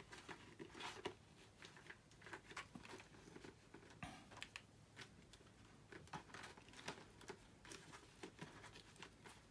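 Faint rustling, creaking and small irregular taps of a handmade thick-paper-and-tape helmet being worked down onto the head and adjusted by hand, which is awkward to fit.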